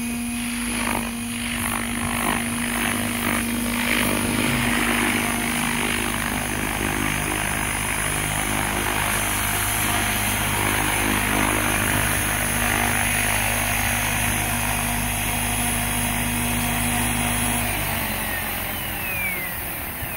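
Electric 700-size RC helicopter (Compass 7HV) with its main rotor and motor running steadily as it flies and hovers down to land. Near the end the steady tones cut off and a falling whine follows as the rotor spins down after landing.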